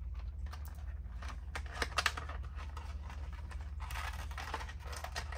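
A cardboard box holding a nail polish set being opened and handled: many small scratchy rustles and clicks, busiest from about a second and a half in, over a steady low hum.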